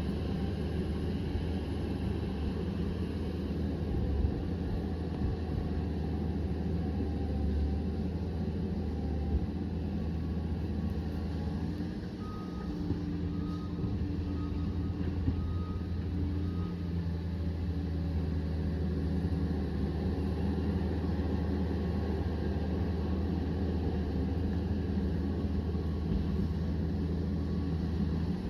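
Liebherr 744 crawler dozer's diesel engine running steadily at working revs. A reversing alarm beeps for a few seconds about halfway through.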